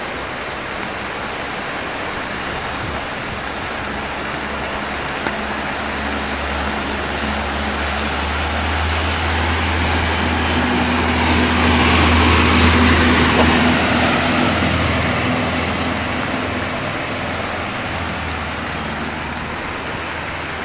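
Steady rush of water in a flooded street. About halfway through, a car drives through the floodwater: its engine hum and the splash of its wheels swell to a peak, then fade away.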